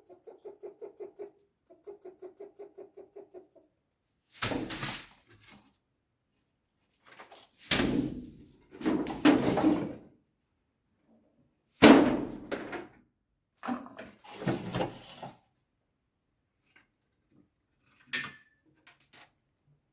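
Rats making a strange sound: first a rapid pulsing buzz of about five pulses a second, then several loud, harsh, noisy outbursts of about a second each, the loudest about twelve seconds in, and a few faint clicks near the end.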